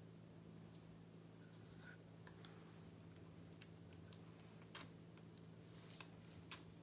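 Near silence over a steady low hum, broken by a few faint clicks and taps of small plastic paint cups being handled and set down on the counter; the two sharpest taps come a little past the middle and near the end.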